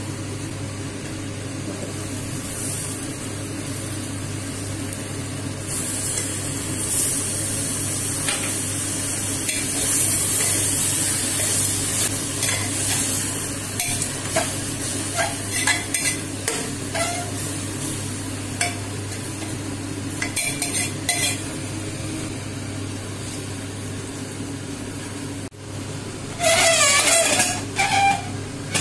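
Drumstick leaves sizzling in hot oil in an aluminium pressure cooker while a spoon stirs and scrapes them, with scattered taps of the spoon on the metal pot. Near the end comes a louder metallic clatter.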